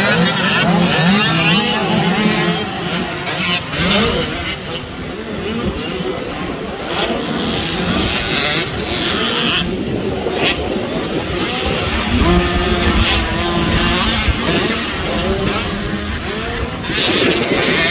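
Youth motocross dirt bike engines revving on the track, the engine pitch rising and falling again and again as the riders work the throttle.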